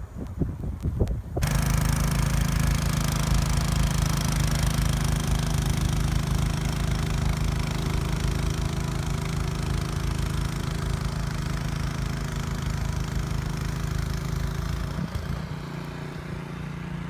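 An engine running steadily at an even speed with a low hum, coming in suddenly just over a second in after a few knocks, and changing tone slightly near the end.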